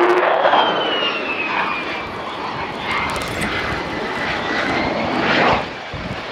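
F-35 fighter's Pratt & Whitney F135 turbofan running during a slow, gear-down pass, a steady jet roar. A high whine over the roar slides slowly downward in pitch, and the sound drops off briefly near the end.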